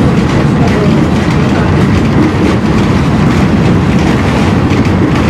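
Tram rolling along the street, heard from inside the car: a steady, loud rumble of steel wheels on the rails with light rattling.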